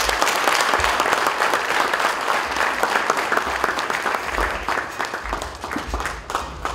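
Audience applauding: dense, even clapping from many hands that thins out and grows quieter near the end.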